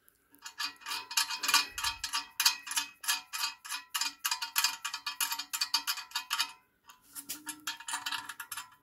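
Rapid, evenly repeated metallic clicking with a ringing tone, about four or five clicks a second, as the already-loosened lock fastening is worked off the metal vending machine cabinet; it pauses briefly near the end and starts again.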